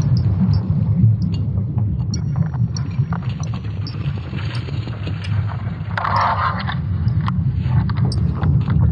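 Sonification of Earth's magnetic field: a deep, steady rumble with scattered crackling clicks on top, and a brief louder hiss-like surge about six seconds in.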